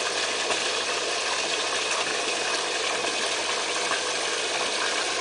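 Steady splashing of water pouring from a small artificial cascade, a stone spout, into a swimming pool.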